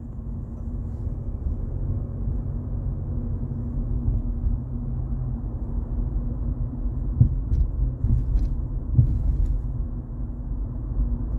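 Steady low rumble of a car on the move, with a faint even hum and a couple of light knocks about seven and nine seconds in.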